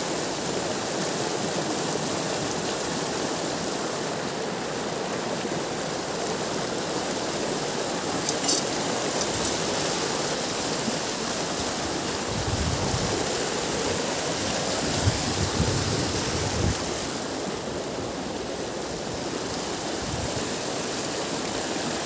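Steady rush of river water tumbling over rocks in rapids, with a few faint clicks about a third of the way in.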